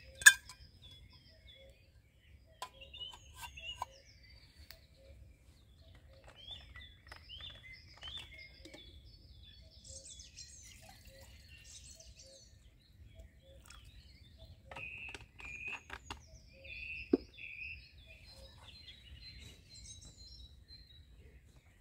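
Birds chirping and calling over a faint low rumble, with scattered clicks and knocks from the mess-kit pieces being handled. The loudest is a sharp knock just after the start; a second strong knock, with a brief ring, comes later.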